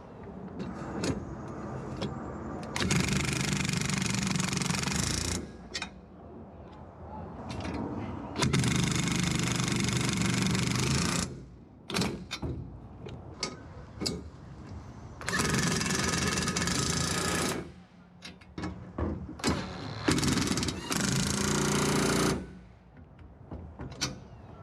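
Impact wrench hammering bolts tight, in four bursts of about two to three seconds each, with clinks and knocks of the socket being moved from bolt to bolt in between.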